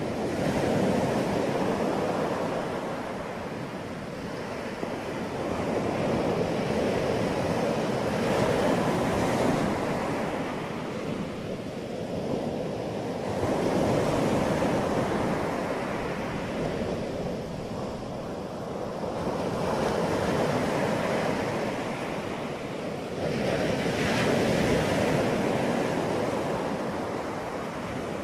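Rushing noise with no tone in it, swelling and fading about every five to six seconds.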